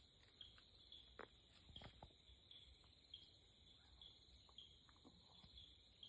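Faint night insect chorus: a cricket chirping about twice a second over a steady high hiss of other insects, with a few faint clicks.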